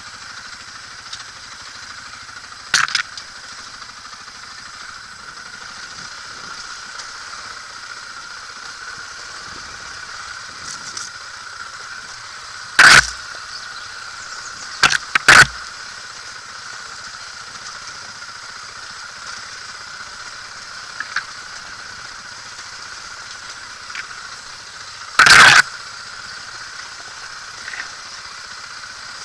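Helmet-camera sound of a dirt bike riding down a rutted dirt trail: a steady rushing noise of the running bike and air over the camera, broken five times by very loud, sharp knocks as the bike jolts over bumps.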